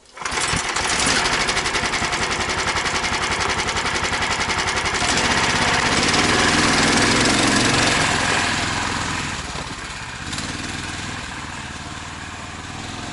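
Small engine of a tracked mini-crawler running steadily with a fast, even firing beat. It grows louder in the middle, then eases off.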